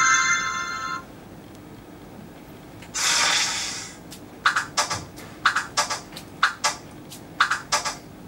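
Moff Band toy sound effects played through a smartphone speaker as the wristband wearer moves his arm: a tinkling magic chime that stops about a second in, a noisy whoosh around three seconds in, then quick swishes in pairs, about four pairs, for ninja mode.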